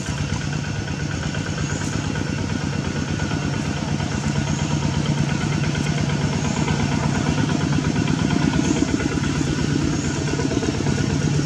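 An engine running steadily with a fast, even pulse, slowly getting louder.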